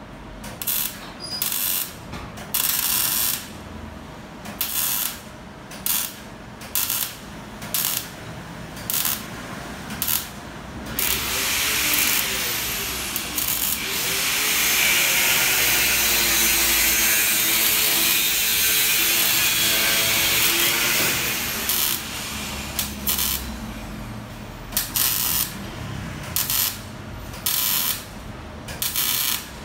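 Electric welder laying tack welds on a scooter's steel exhaust pipe: a string of short welding bursts, each about a second or less with pauses between. This is followed by one unbroken run of about ten seconds from around eleven seconds in, and then more short bursts.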